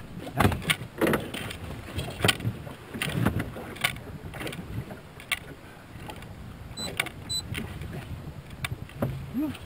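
Irregular knocks and clatter in an aluminum boat as a freshly landed coho salmon is handled in the landing net on the boat floor.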